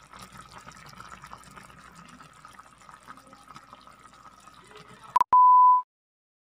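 Pot of crabs and string beans simmering, the liquid crackling and bubbling. About five seconds in, a click, then a loud, steady half-second test-tone beep over TV colour bars.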